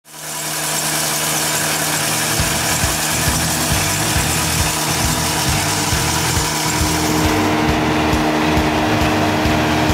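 John Deere S670i combine's 9-litre six-cylinder diesel (John Deere 6090) running steadily, a hum of several steady tones over a broad hiss with a low, uneven throb. It fades in at the start, and past the middle the high hiss drops away while a steady hum comes forward.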